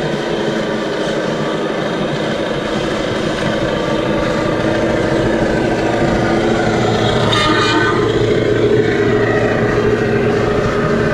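Radio-controlled scale Scania truck's sound module playing a diesel engine note as the truck drives up and past, getting a little louder as it nears. A brief higher horn toot sounds about seven seconds in.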